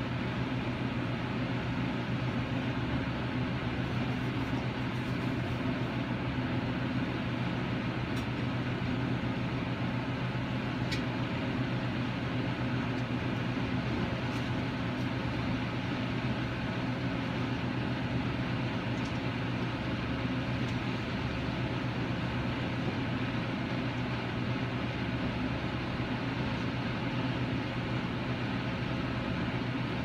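A steady low mechanical hum under an even rushing noise, unchanging throughout.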